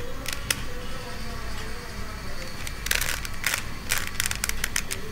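Plastic 3x3 Rubik's cube being turned by hand: its layers click and rattle in quick bursts, a couple of clicks early and a dense run of them about three to four and a half seconds in.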